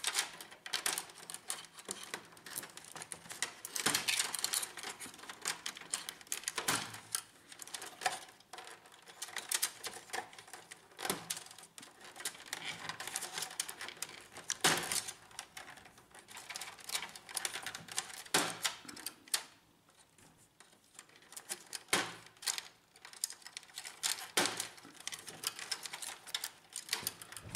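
Wire connectors and flat ribbon cables being unplugged by hand from a laser printer's main board: irregular small plastic clicks and rattling, with a short pause about twenty seconds in.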